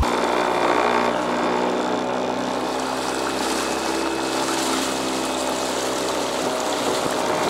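Water rushing and splashing along the hull of a kayak moving at speed, with a faint steady hum underneath.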